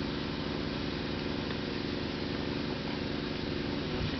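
An engine idling steadily: an even low hum with a fast regular pulse and no change in pitch or loudness.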